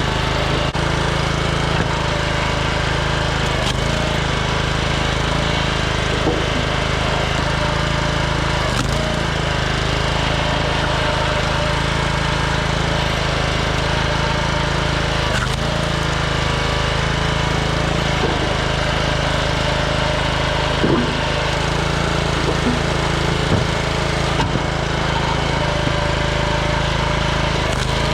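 Small gas engine of a 27-ton Troy-Bilt log splitter running steadily, with a few faint cracks of wood as red oak rounds are split.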